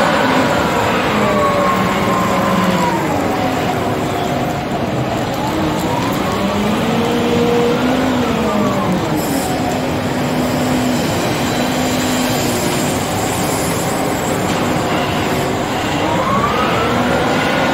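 Volvo L350H wheel loader's diesel engine working under load, its pitch rising and falling a few times as the boom lifts a full bucket of gravel and tips it into an articulated dump truck.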